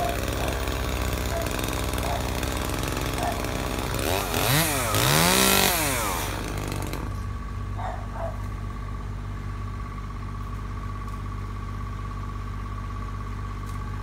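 Chainsaw revving up about four seconds in, running flat out for about two seconds, then falling back to a steady idle. A steady engine hum runs underneath.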